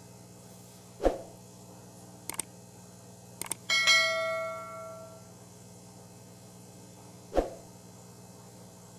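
Subscribe-button animation sound effects: a soft thump, two mouse clicks, then a notification bell dinging and ringing out for about a second and a half, with another thump near the end. A faint steady hum runs underneath.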